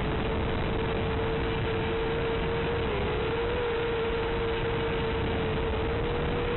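Small FPV racing quadcopter's motors and propellers running at a steady cruising throttle: one steady whine that wavers briefly about halfway through, under a heavy constant hiss.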